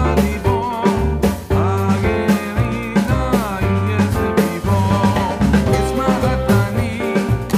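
Upbeat background music with a steady drum beat, a bass line and a melody.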